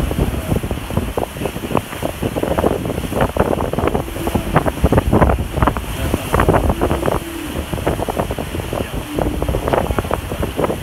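Strong wind buffeting the microphone in irregular gusts, over the rush of waves and water along the hull of a fast-sailing catamaran.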